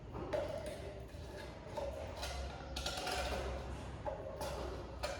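A scraper scraping thick marble adhesive out of its container, in a series of short scrapes and knocks.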